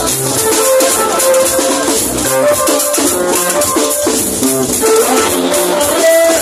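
Live band music with a drum kit and guitar playing a steady beat, loud.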